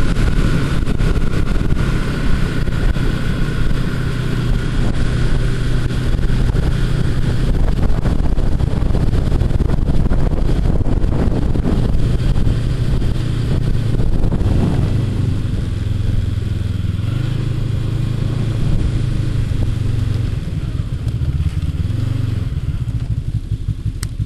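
Snowmobile engine running under way, a steady drone mixed with wind and track noise. The engine note shifts about halfway through and eases off slightly toward the end.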